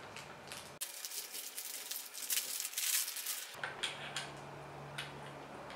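Plastic parts bag crinkling for a few seconds, then a few small clicks of metal parts as an accessory foot is worked onto the end of an aluminium monopod.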